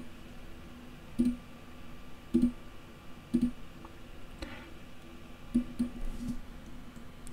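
Single clicks of a computer mouse, roughly one a second, with a couple closer together near the end.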